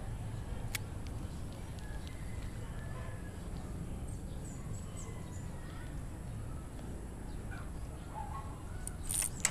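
Outdoor village ambience: birds calling faintly over a steady low rumble, with a brief sharp noise about nine seconds in.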